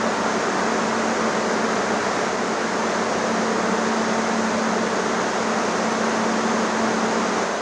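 Corn dryer's fan and machinery running: a steady rushing noise with a constant low hum.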